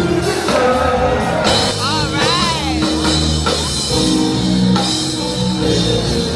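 Soul music with singing, drums and guitar over a steady beat.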